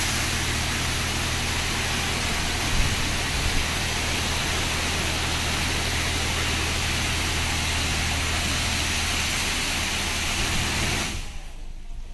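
Touchless laser car wash spraying high-pressure water over a car: a steady loud hiss of spray with a low machine hum underneath, both cutting off about eleven seconds in as the spraying stops.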